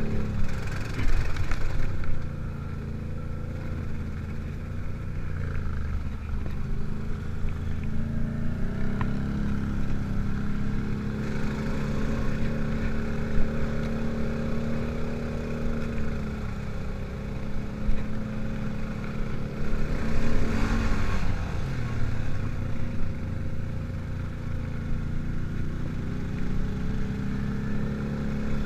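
ATV engine running under way on a dirt trail, its note rising and falling as the throttle is worked. There are brief louder rushes of noise about a second in and again about twenty seconds in.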